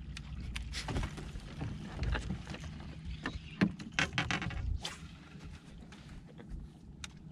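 Small waves lapping and slapping against a bass boat's hull under a low rumble, with irregular sharp clicks and knocks.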